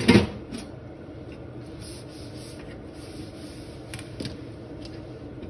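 A cloth or paper towel rubbing and wiping across a kitchen worktop, a quiet scrubbing over a low steady background noise, with a couple of faint clicks near the middle.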